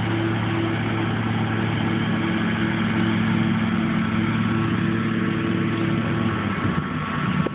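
Ride-on mower engine running steadily, with an even pulsing hum; shortly before the end the sound turns rougher and more uneven.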